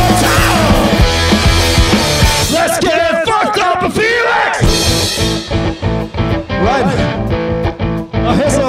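Live punk-blues rock band playing an instrumental passage: guitar with bending notes over steady drum hits.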